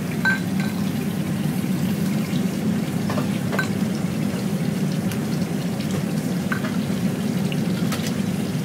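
Steady low rushing noise from a gas wok burner with a pan of coconut soup simmering on it. Liquid pours as the soup is ladled from the wok into a ceramic bowl, with a few light clinks of the metal ladle.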